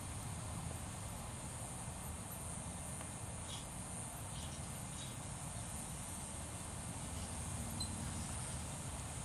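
Insects chirring steadily in a high, even drone over a low rumble, with a few faint short chirps about three and a half to five seconds in.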